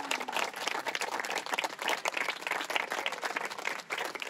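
A crowd of guests applauding, many hands clapping steadily together.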